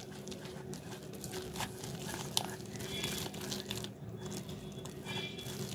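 A hand mixing gram flour and water into a thick batter in a stainless steel bowl: soft, irregular squishing and scraping, with one sharper click a little before the middle.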